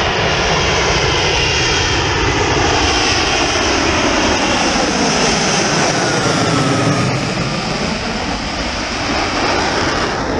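Lockheed Martin F-35B Lightning II in jet-borne flight for a short landing, its lift fan and downward-swivelled engine nozzle running together in a loud, steady jet noise. Faint tones within the noise slowly slide in pitch.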